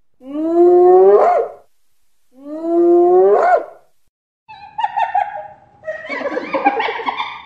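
Calls of a large African carnivore: two long whooping calls that rise in pitch and end on a sharp upward sweep, then a run of overlapping chattering calls near the end.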